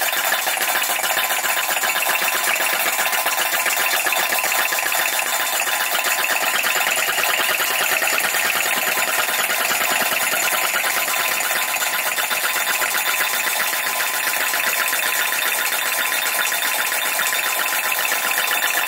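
PM Research #3 flame licker vacuum engine running fast just after being kicked over, driving a small model gold battery stamper by a round belt. The two make a rapid, even clatter that holds steady.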